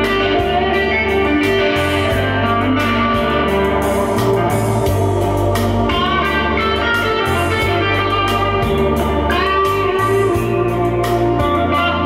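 Music playing from a Harman Kardon Aura Studio speaker: guitar over a deep bass line, with a few short notes that slide upward.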